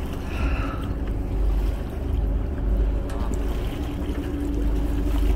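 Boat under way at sea: a steady low motor hum under water washing along the hull, with wind rumbling on the phone's microphone.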